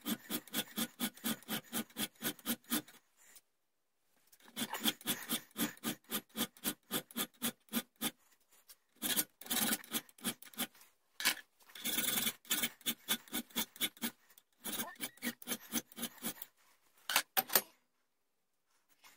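Hand file being stroked back and forth over a small steel rear sight clamped in a vise, a rasping scrape on each stroke, about three strokes a second. The filing comes in several runs broken by short pauses and stops near the end.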